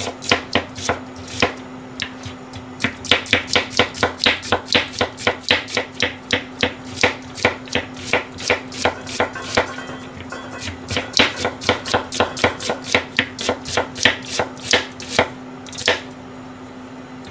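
Kitchen knife thinly slicing an onion on an orange cutting board, a regular run of chops about four a second with a few short pauses. A faint steady hum runs underneath.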